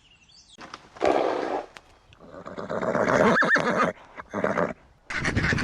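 A large animal calling in three loud, harsh bursts. Near the end it cuts sharply to a flock of geese honking.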